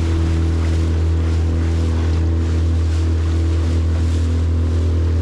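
Outboard motor running at a steady speed, driving a small aluminium boat, with water splashing and rushing against the hull.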